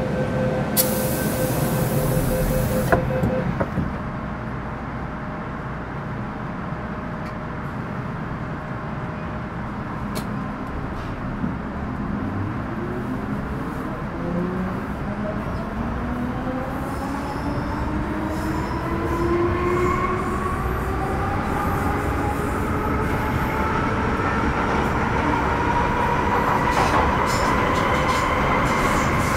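Interior sound of an MTR Metro Cammell M-Train EMU with GEC GTO chopper traction, pulling away from a station. A short hiss of air comes about a second in. From about twelve seconds on, the chopper's whine climbs steadily in pitch as the train accelerates, over the rumble of the wheels.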